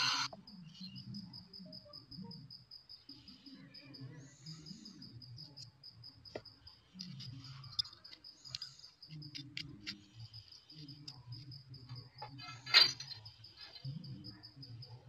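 A cricket chirping with a high, thin note in rapid, evenly spaced pulses that pause now and then. Light clicks and knocks fall here and there, with one sharp knock near the end.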